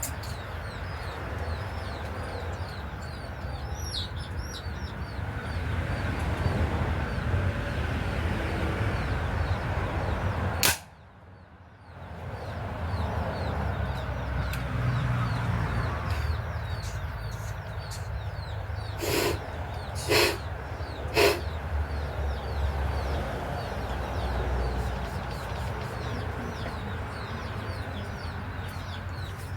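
A single sharp air rifle shot about a third of the way in, after which the sound briefly drops out; later three sharp clicks about a second apart. Small birds chirping and a steady low rumble underneath.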